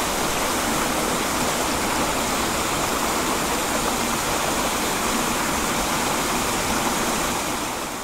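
Small waterfall pouring into a rocky plunge pool: a steady rush of falling water that fades out near the end.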